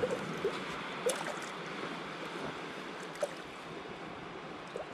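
Steady wash of surf on a sandy beach, with a few short faint clicks.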